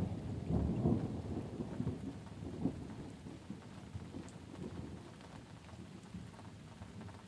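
Rolling thunder rumbling low and fading away over several seconds, over steady light rain.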